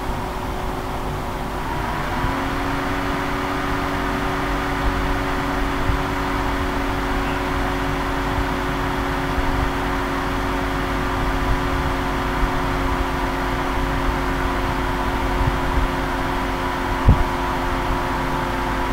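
Computer cooling fan whirring with a steady hum. About two seconds in it speeds up, its pitch stepping up and then holding, as the computer starts working through the script. A single sharp click comes near the end.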